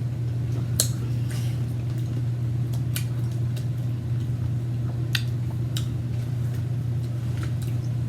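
Mouth sounds of someone chewing a salted lime, skin and all: a few sharp, wet clicks and smacks scattered over a steady low hum.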